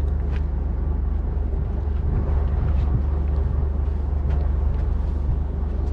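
A wooden fishing boat's engine running steadily: a constant low drone, with a few faint knocks over it.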